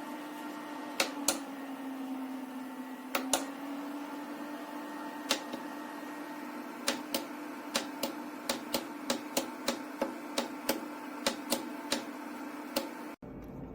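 A small dehumidifier's fan running with a steady hum, its pitch dipping slightly for a couple of seconds early on. Over it come sharp clicks, a few scattered at first, then about two a second over the last half.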